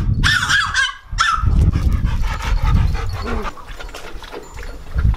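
A dog giving a few high-pitched barks in the first second or so, followed by a low rumbling noise on the microphone.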